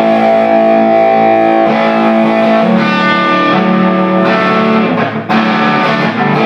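Telecaster-style electric guitar played through a 10-watt 6AQ5 valve amp, the GR Amplifiers JKD, with a distorted tone. Four or five chords are struck and left to ring, changing about every second or so.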